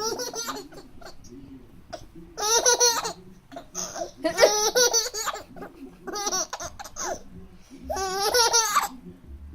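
A baby laughing in repeated high-pitched fits, about five bursts a second or two apart, with quieter sounds in the gaps.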